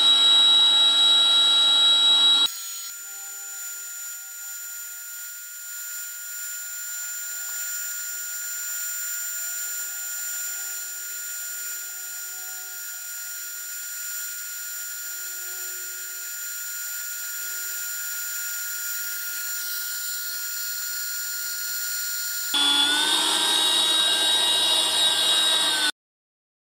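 Parkside PKA 20-Li A1 cordless air pump's blower motor running steadily in suction mode, drawing the air out of a large air mattress to deflate it. It is loud at first, drops much quieter about two seconds in, comes back loud near the end, and then cuts off suddenly.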